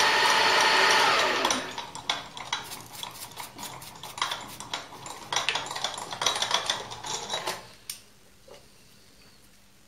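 End mill cutting aluminium on a milling machine for about the first second and a half, then the cut stops. A brush then sweeps the loose aluminium chips off the workpiece and vise, a run of scratchy brushing and light clattering clicks that stops about eight seconds in.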